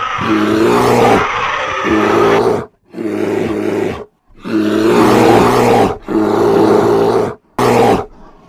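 Bear roaring: a series of loud, growling roars, each one to two seconds long, with short breaks between them.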